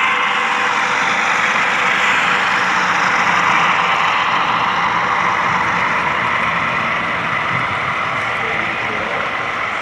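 HO scale model freight train rolling past close by: a steady rushing rumble of its wheels running on the rails as the fuselage-carrying flatcars go by, slowly fading.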